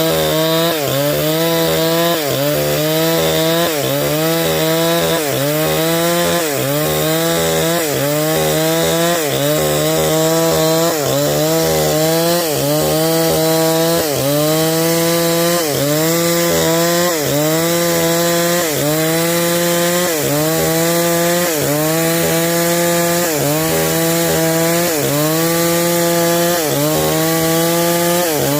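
Stihl 070 two-stroke chainsaw ripping timber lengthwise into beams. The engine is run hard throughout, its pitch sagging under load and picking back up in a steady rhythm, a little more than once a second.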